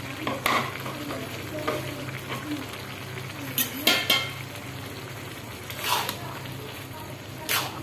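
A metal spatula stirring and scraping bhuna khichuri (rice and lentils) in a metal karahi, over faint sizzling from the pan. Several sharp scrapes come a second or two apart, with a steady low hum underneath.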